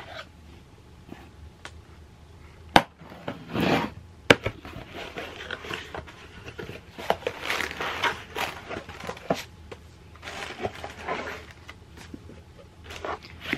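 A cardboard shipping box being opened by hand: packing tape and cardboard flaps scraping and rustling, then books and plastic wrapping being lifted out. Two sharp knocks come about three and four seconds in.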